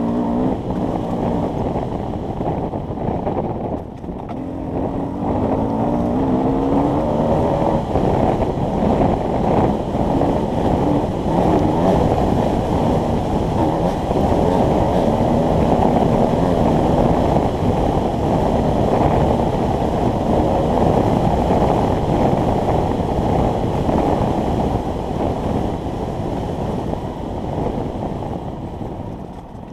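Enduro dirt bike engine running and revving under load, its pitch rising and falling, heard muffled and boomy with wind buffeting the microphone.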